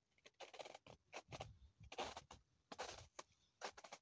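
Footsteps in shoes crunching through snow: a quick series of soft crunches, a step roughly every half second.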